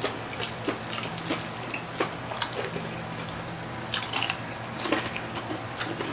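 Close eating sounds: crispy pata (deep-fried pork leg) being torn apart by hand and chewed, heard as many short wet clicks and crackles from the fried skin, fingers and mouth.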